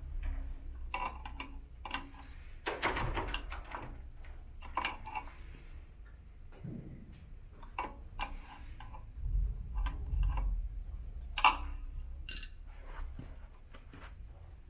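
Metal tools clinking and knocking while a locking nut is tightened onto an elliptical trainer's one-piece crank: scattered clicks and taps, with one sharp click late on.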